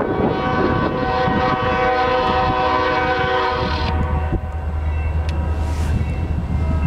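Diesel locomotive horn sounding a steady chord, cutting off about four seconds in. A deep, steady rumble of a diesel engine follows.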